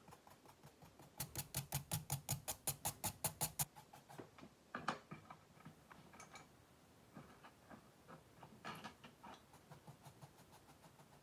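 White drawing crayon stood on end and tapped quickly against paper, about seven taps a second for a couple of seconds, making the spines of a sketch. A few more scattered taps and short strokes follow.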